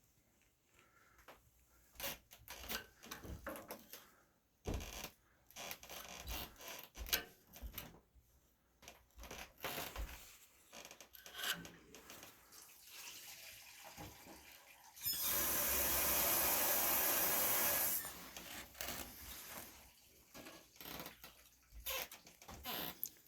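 Scattered small clicks, taps and rubbing, like tools and a metal blade being handled. Past the middle a loud steady hiss runs for about three seconds and stops abruptly.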